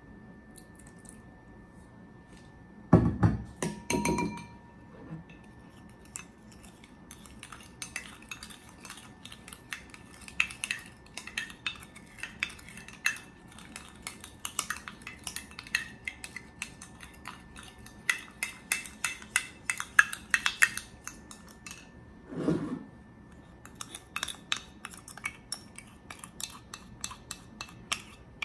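Hot water poured from a jug into a small ceramic ramekin, then a spoon clinking and scraping against the ceramic in quick, irregular strokes as the coffee is stirred. Near the end the spoon scrapes the mixture out of the ramekin into a ceramic bowl.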